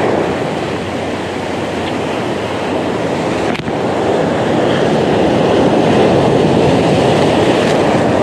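Sea surf breaking and washing over shoreline rocks: a steady, loud rush of whitewater.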